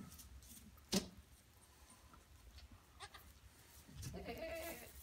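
A goat bleating once, a call of about a second near the end, with a single sharp click about a second in.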